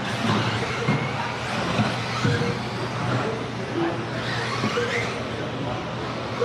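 Several electric RC buggies with 13.5 brushless motors running a practice heat on an indoor carpet track. The motors whine, rising and falling in pitch as the cars accelerate and slow, over a steady low hum.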